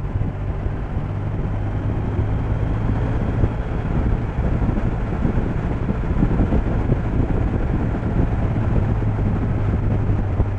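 Motorcycle engine running steadily at cruising speed, a constant low hum under an even rush of wind and road noise.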